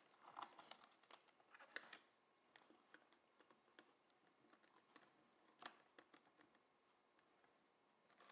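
Very faint small clicks and scrapes of hand wiring work: stiff wires pushed into a plastic terminal block and a small screwdriver turning a terminal screw, with a few sharper clicks about two and six seconds in.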